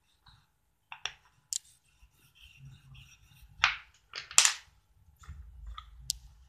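A pen and paper handled on a table: a few short, sharp clicks and scrapes, the two loudest about three and a half and four and a half seconds in.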